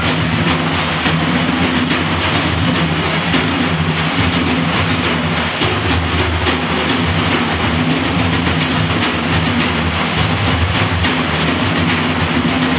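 A large ensemble of frame drums played together in a fast, continuous roll, making a steady, dense rumble with no separate beats standing out.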